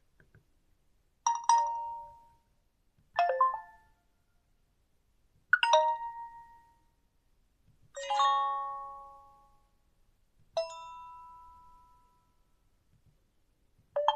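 Nokia 2780 Flip phone playing its built-in tones through its speaker: a series of short, separate chimes, each a different pitch pattern, starting sharply and dying away about two to three seconds apart, with another beginning near the end.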